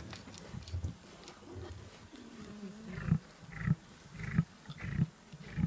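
Lion giving a run of short, low grunts, about one every 0.6 seconds, starting about three seconds in, in the manner of the grunting that ends a roar. A few faint clicks in the first second.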